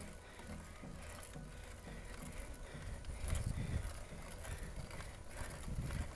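Riding noise from a mountain bike climbing a concrete road: a steady low rumble with tyre and drivetrain noise, swelling louder about three and a half seconds in and again near the end.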